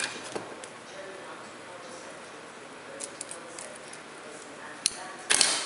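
Scissors cutting a shielded cable: a few light clicks about three seconds in, a sharp click near five seconds, then one loud short cut just before the end.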